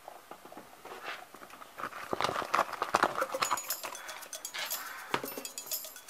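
Hard plastic toy food pieces clicking and clattering as they are handled and set on a table, busiest about two to three seconds in.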